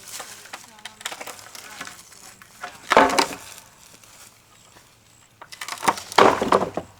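Wooden deck boards cracking and crunching as they are pried and broken loose, in several bursts, the loudest about three seconds in and another near the end.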